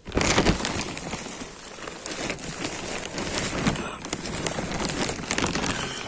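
Plastic bag crinkling and crackling close to the microphone as it is handled and pulled closed around a sleeper, starting suddenly and going on as a dense run of crackles.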